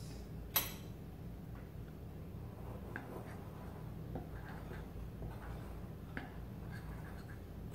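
Small metal utensil stirring dry flour, sugar and spices in a glass bowl: faint soft scratching with light ticks against the glass, after one sharp click about half a second in.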